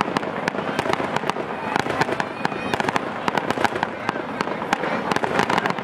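Aerial fireworks shells bursting overhead: a rapid, irregular string of sharp pops and bangs, several a second.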